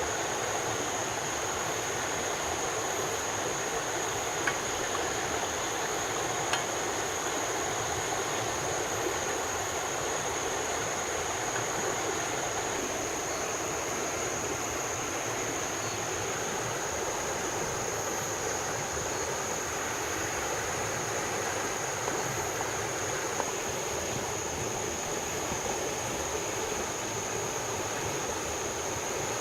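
Rainforest ambience: a steady rushing noise like running water or rain, under a constant high-pitched insect drone. A couple of faint clicks in the first seven seconds.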